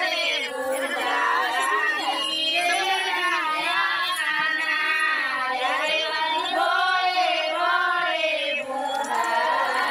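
A high female voice in long, wavering, sing-song phrases with brief breaks, drawn out rather than spoken.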